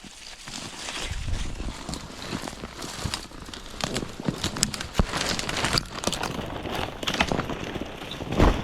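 Footsteps crunching through snow and thick brush, with twigs and branches crackling and snapping, a sharp snap about five seconds in and a heavy thump near the end.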